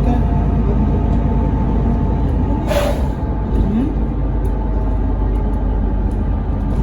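Mercedes-Benz Citaro O530 bus running with a steady engine drone, with a short hiss of released air about three seconds in.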